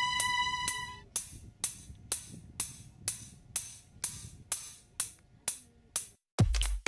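Background electronic music: held tones over a steady beat break off about a second in, leaving a ticking, hi-hat-like beat about two strokes a second. Near the end a heavy bass beat comes in.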